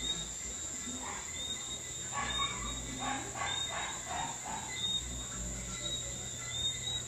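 Insects chirping steadily in the background, with short repeated chirps over a continuous high trill, and a faint low steady hum underneath.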